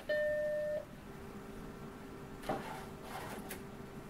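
Apple Macintosh SE powering on: its single-tone startup beep, held for under a second, followed by the steady hum of the running machine. About two and a half seconds in comes a click and a second of scraping as a floppy disk is pushed into the built-in floppy drive.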